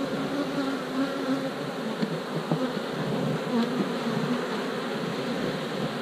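Honeybees buzzing around an open hive during an inspection, single bees passing close with short wavering hums that come and go. A few light clicks sound about two to four seconds in.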